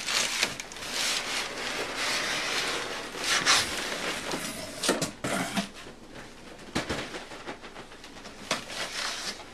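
Paper and cardboard packing rustling and scraping as it is handled and pushed aside in a large shipping box. There are a few sharp knocks about five and seven seconds in, and the handling gets quieter in the second half.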